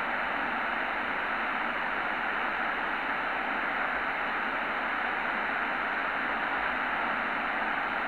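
Tecsun PL-600 shortwave receiver giving a steady, even hiss of band noise and static through its speaker, tuned in SSB mode to the 80-metre amateur band with no station transmitting.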